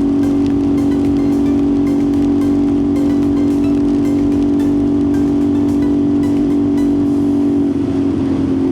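CFMOTO 450SS parallel-twin engine running at a steady cruising speed, a loud even drone at one pitch that wavers slightly near the end. Under it is a constant rush of wind and rain.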